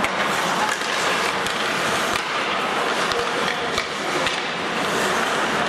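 Ice hockey skates scraping and carving across the ice, with several sharp clacks of sticks striking the puck and the ice.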